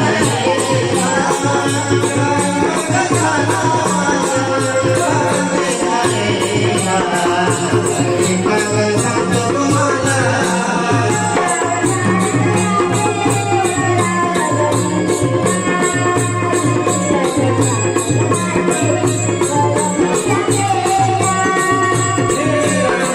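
Naman folk music: a steady rhythm of zanj hand cymbals and dholki drum under a wavering melody line.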